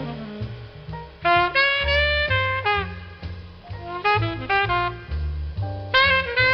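Background music: held chords with short phrases over a bass line, some notes sliding downward near the end.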